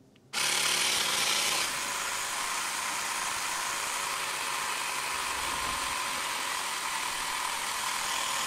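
Xiaomi Mi portable battery-powered air compressor running steadily while inflating a large air cushion at low pressure, around 0.3 bar. It starts abruptly a moment in.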